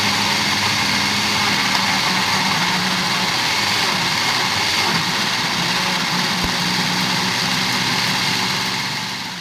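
Electric kitchen blender running steadily at full speed, pureeing chunks of boiled carrot, guava, apple and muskmelon with a little water. Near the end it is switched off and the motor winds down.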